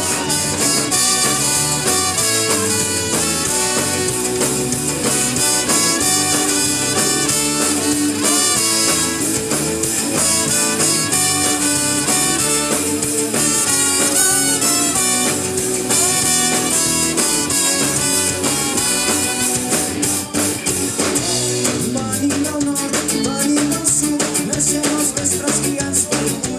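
Live band music: trombone and trumpet playing over drum kit, bass and guitars in an instrumental passage with a steady beat.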